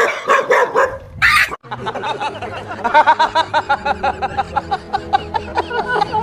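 A dog barks and yelps briefly. Then men burst into hearty laughter, a fast run of ha-ha bursts that keeps going.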